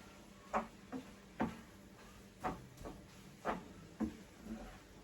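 Cooking utensil knocking and scraping against a pan while stirring mince and noodles together: about eight short, uneven clicks and knocks.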